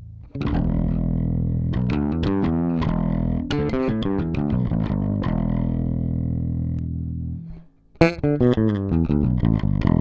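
Yamaha BBNE2 electric bass played through an EBS MetalDrive distortion pedal: heavily distorted, sustained low notes with quick runs over them, breaking off a little past seven seconds. About a second later the playing resumes with the pedal switched off, the notes now clean with sharp attacks.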